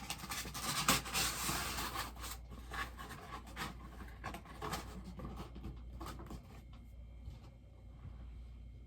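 Packaging being handled during an unboxing: rustling and scraping with small clicks and knocks, dying down after about six seconds.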